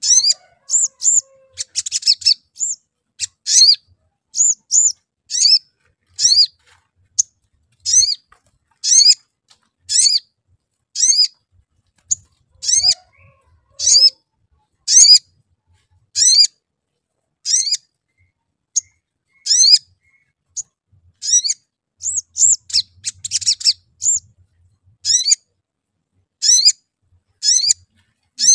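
Male olive-backed sunbird calling: sharp, high chirps repeated about once a second, with a few quicker runs of chirps near the start and again late on.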